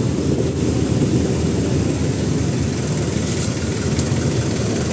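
Steady low rumble of idling heavy vehicle engines, with no pitched tone standing out.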